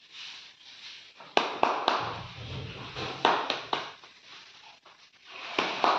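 Sharp taps and clicks in three short groups about two seconds apart, two or three in each, over faint room noise.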